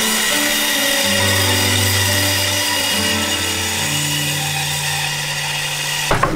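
Band saw running and cutting through a movingui board, a steady hiss with a high whine. Background music with slow, held bass notes plays over it.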